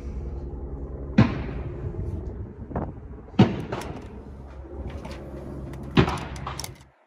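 Remington Sportsman 58 12-gauge semi-automatic shotgun firing three sharp shots about two and a half seconds apart, over a steady hum that stops just before the end.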